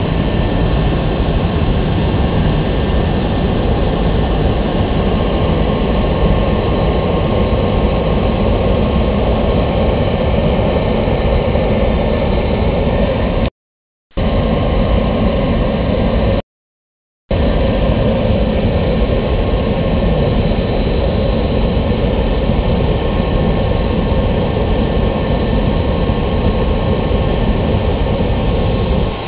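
A KDC-10 tanker's three jet engines running at low taxi power close by: a loud, steady rumble with a thin high whine over it. The sound cuts out completely twice, for under a second each, a little after the middle.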